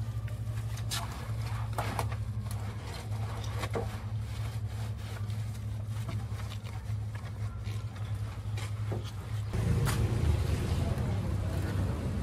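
A steady low motor hum with a few sharp clicks scattered through it. About three-quarters of the way in, the hum grows denser and a hiss joins it.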